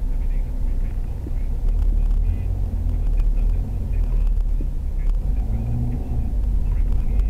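Low, steady rumble of a car's engine and tyres on the road, heard from inside the cabin while driving.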